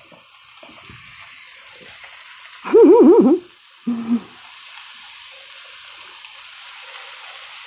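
Diced turnip sizzling in hot oil in a skillet: a steady frying hiss that grows a little louder about halfway through. A short burst of voice cuts in about three seconds in.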